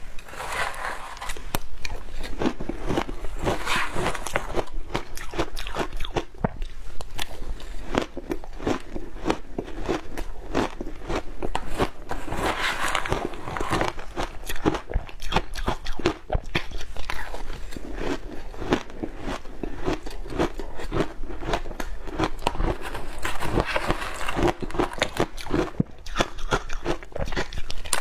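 Shaved ice being bitten and chewed close to the microphone: a continuous run of crisp, irregular crunches, several a second.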